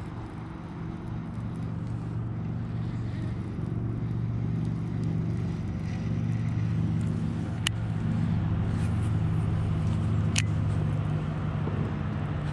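A steady low engine hum that slowly grows louder, with two short sharp clicks in the second half.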